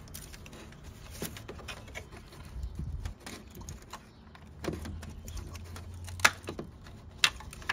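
Plastic vehicle lamp housing being worked into place in a truck's front end: scattered light plastic clicks and rattles, with two sharp knocks near the end as it is pushed home.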